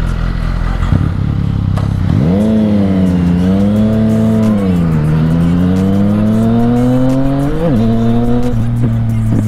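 Motorcycle engine running while riding. Its pitch climbs, wavers and rises slowly with the throttle, then dips sharply and comes back near the end, over a steady low drone.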